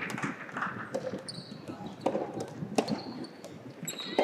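Sharp knocks of a rubber soft-tennis ball, about one a second, during play, with a few short high squeaks of shoes on the court floor.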